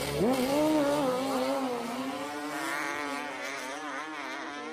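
A four-wheeler (ATV) and a sport bike launching off the drag strip's starting line and accelerating away at full throttle. Engine pitch jumps sharply about a quarter second in, then wavers up and down as they pull away and the sound slowly fades.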